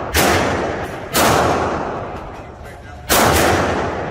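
Three gunshots from a firearm at a shooting range, about a second in, a second later, and two seconds after that. Each is a sharp crack that trails off over about a second.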